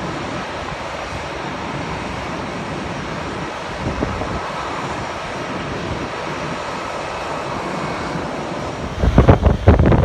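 Steady, distant jet aircraft engine noise carrying across an airport apron, with a faint whine on top. About a second before the end, wind starts buffeting the microphone in loud low gusts that drown it out.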